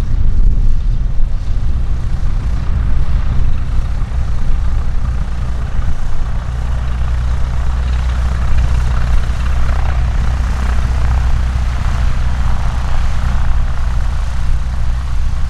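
Light single-engine propeller aircraft engine, growing louder through the second half, over a constant low rumble.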